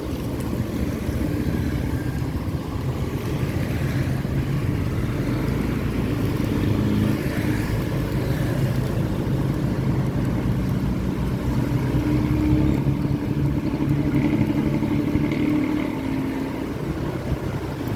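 Bus diesel engine running steadily, with the raspy, snoring 'ngorok' exhaust note typical of Cirebon-route buses; its pitch shifts a little and it grows slightly louder in the second half.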